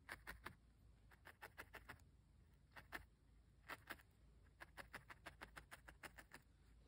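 A fine felting needle stabbing repeatedly into firmly felted wool, giving faint quick pokes in runs of about five a second, with short pauses between runs.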